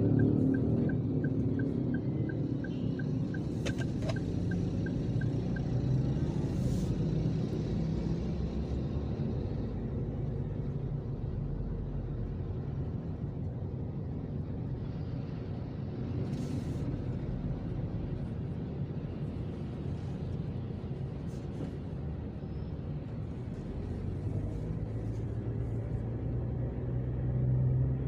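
A car driving in traffic: a steady low rumble of engine and tyres on the road. A faint, regular ticking runs for the first five seconds or so. A low hum swells near the end.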